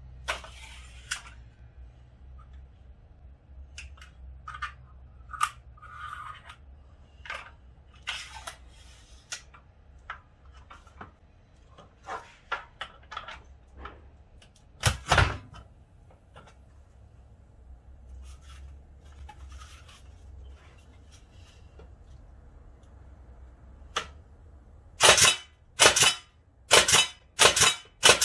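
Pneumatic tray stapler firing staples into cardboard, five sharp air-driven bangs in quick succession near the end. Before that come small clicks and rattles as staples are loaded and the tool is handled, and a single loud pop about halfway as the air hose quick-coupler is snapped on.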